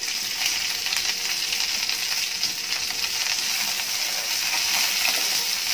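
Hot oil sizzling steadily in a pan as curry leaves, green chillies and dry red Kashmiri chillies fry in it for a tempering.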